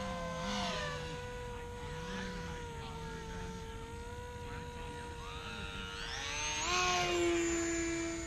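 Small electric motors whining in several steady tones that drift slightly, typical of racing quadcopters in the distance. About six seconds in the pitch rises sharply as one throttles up.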